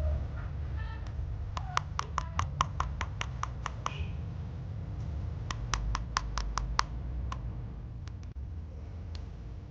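Spoon clinking against the side of a small cup while stirring a thick herbal honey mixture: two runs of quick, even clicks, about five a second. The first run lasts about two seconds; the second, a few seconds later, is just over a second long.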